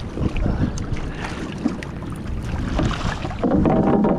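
Wind buffeting the microphone over water sloshing and splashing, with uneven knocks. A brief held pitched sound about three and a half seconds in.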